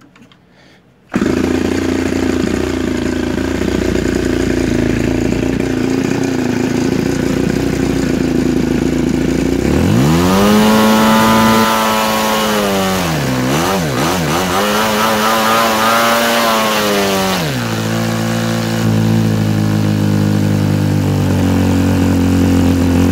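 M&R 100cc opposed-twin model-airplane gas engine with a wooden propeller, catching on a hand flip of the prop about a second in and settling to a steady idle. About ten seconds in it is revved up high, dropped back twice in quick succession, held high again, then throttled back down to idle.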